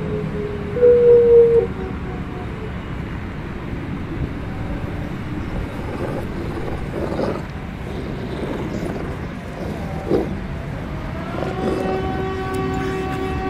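Siren Head monster sound effects over a low rumble: a short, loud siren-like wail about a second in, a couple of rough growls in the middle, and a steady siren drone of several stacked tones that starts near the end.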